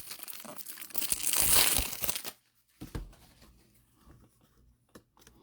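Foil wrapper of a trading card pack crinkling as it is torn open and handled, for about two seconds, then a few light clicks as cards are handled.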